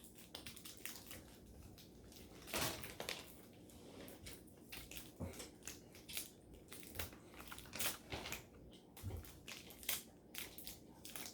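Faint, irregular crackles and clicks of snack eating and wrapper handling, about one or two a second, with a louder crackle about two and a half seconds in.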